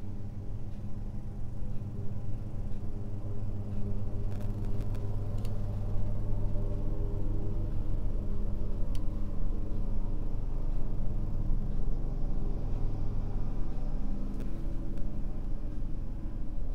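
Steady low machine hum with several pitched tones, running the whole time, and a few faint ticks.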